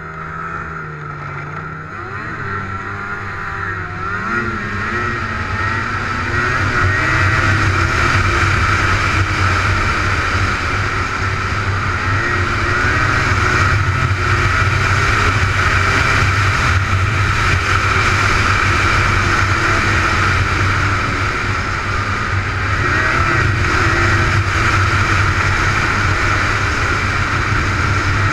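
Snowmobile engine accelerating, its pitch rising over the first few seconds, then running steadily at speed. It eases off slightly about twenty seconds in and picks up again.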